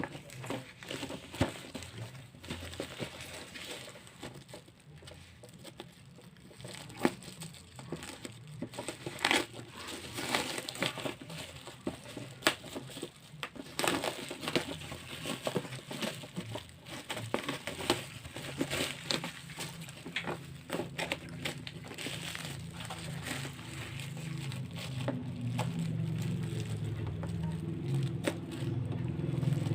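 Packaging crinkling and crackling as a parcel is unboxed, with irregular sharp clicks and rustles. A low hum grows louder near the end.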